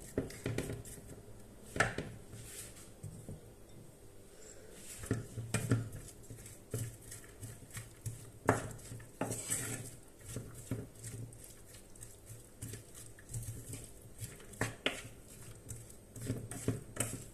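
A cooking utensil knocking and scraping against a pot at irregular moments while chopped onion and garlic are stirred in oil.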